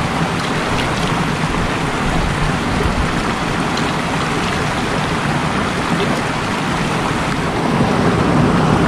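Steady rushing of hot-spring water flowing over the volcanic crater ground, an even wash of noise with no break.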